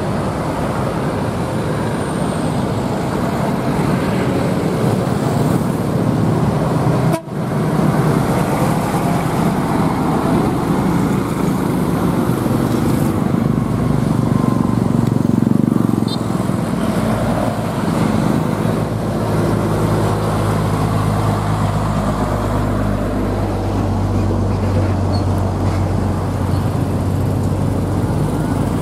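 Heavy roadside traffic: diesel truck engines and motorcycles passing close by in a loud, continuous mix. A steady low engine drone takes over in the second half as a truck approaches.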